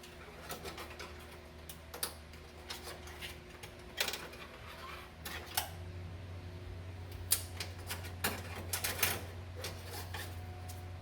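Irregular clicks, taps and scrapes of a wire coat hanger being poked and fished around inside a car's sheet-metal body cavity, trying to hook a wire, over a steady low hum.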